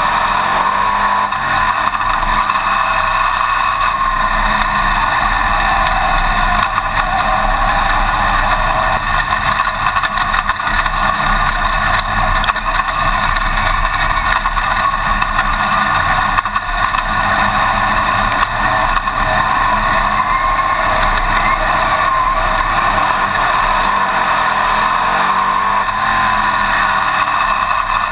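Winged dirt modified race car's engine heard loud from inside its cockpit, running hard at racing speed. Its pitch rises and falls every few seconds.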